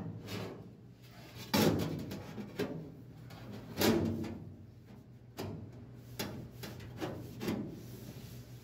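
A thin sheet-metal transmission tunnel panel being handled and pressed into place against the floor: about half a dozen scattered clunks and scrapes of metal on metal, with a faint low steady hum underneath.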